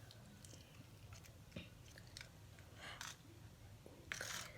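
Homemade slime being handled by hand: faint wet, sticky clicks and squishes, with two brief hissing rustles, about three and four seconds in.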